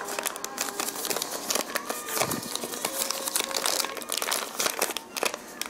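Stiff paper flour bag crinkling and crackling as hands tug and twist at its string-sewn top, trying to pull the closure open. The crinkles come in a dense, uneven run.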